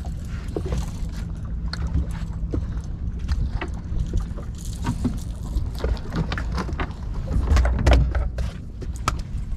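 Boat engine running steadily at a low hum, with many short clicks and splashes over it from the moving boat.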